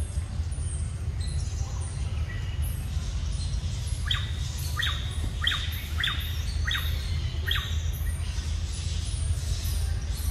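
Wild birds calling: a run of six sharp, evenly spaced calls starting about four seconds in, each a quick falling note, over fainter high chirping and a steady low rumble.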